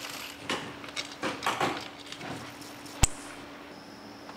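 Light clinks and taps of metal engine parts being handled and fitted into a motorcycle-type engine crankcase, with one sharp metallic click about three seconds in, the loudest sound.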